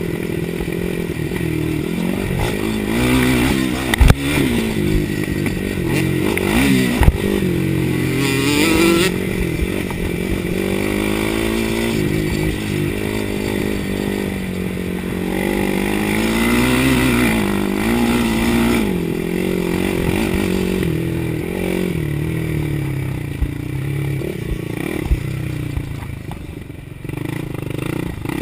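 Suzuki LT-R450 quad's single-cylinder four-stroke engine running under way on a dirt track, its revs rising and falling with the throttle. Sharp knocks come about four and seven seconds in.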